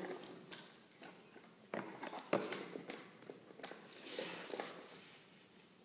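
Faint, scattered clicks, taps and scraping as electrical wires are pushed back into a wall outlet box with a screwdriver.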